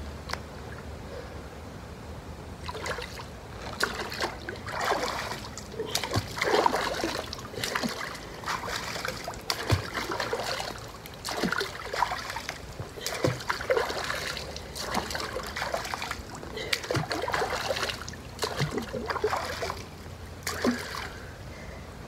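Water in an inflatable above-ground pool splashing and sloshing as a person sweeps her arms and hands through it, in irregular splashes about once a second that begin a few seconds in and die down near the end.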